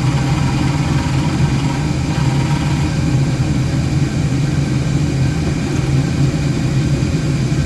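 Wood lathe running steadily with an even motor hum while a bowl is being hollowed.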